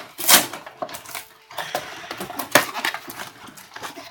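Cardboard toy box being handled and opened by hand: rustling and scraping with sharp clicks and knocks of the cardboard. The loudest knocks come about a third of a second in and about two and a half seconds in.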